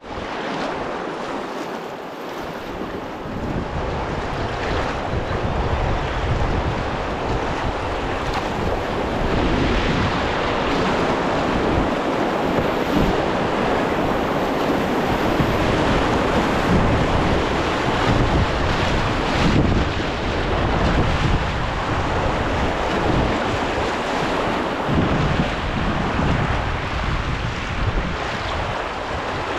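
Rushing white water of a river rapid as a canoe runs down through the waves, mixed with wind buffeting the microphone. The rushing builds a few seconds in and eases a little near the end.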